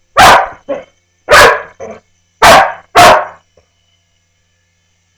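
Dog barking loudly four times, the last two close together, then falling quiet about three and a half seconds in.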